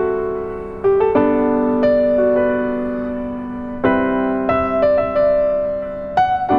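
Slow piano music: chords are struck every second or two and left to ring and fade between strikes.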